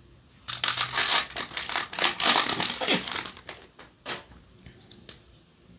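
Foil wrapper of a Yu-Gi-Oh! booster pack being torn open and crumpled by hand: loud crinkling and crackling for about three seconds, followed by a couple of softer clicks of cards being handled.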